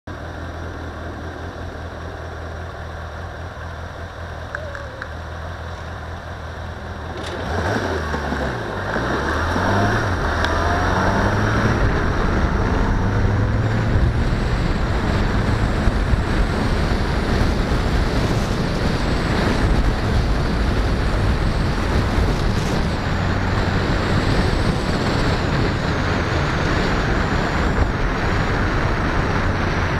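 Car engine idling quietly, then pulling away about seven seconds in: the engine note rises, dips once at a gear change and climbs again, settling into steady engine and tyre noise at driving speed.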